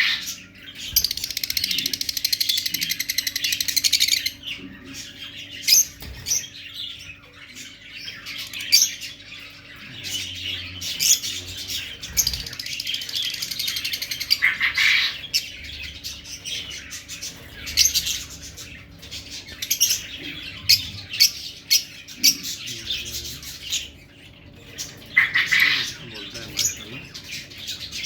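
Fischer's lovebirds calling in shrill, high-pitched chirps and squawks, with a dense run of rapid chattering about one to four seconds in and further bursts later.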